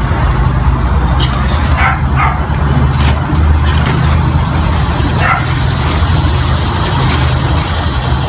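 A steady low rumble with a dog giving a few short yips, twice about two seconds in and once more about five seconds in.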